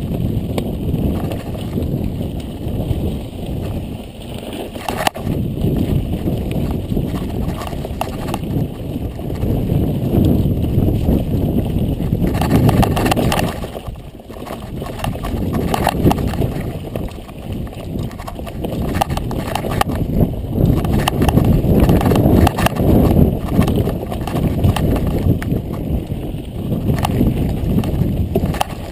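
Mountain bike riding down a rocky dirt singletrack, heard from a camera on the rider: a constant low rumble of tyres on dirt and rock, with dense rattling and knocking from the bike and camera mount over the bumps. It eases briefly about halfway through.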